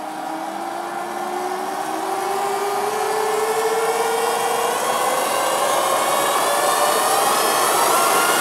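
Electronic soundtrack drone: several slowly rising tones over a hiss, growing steadily louder.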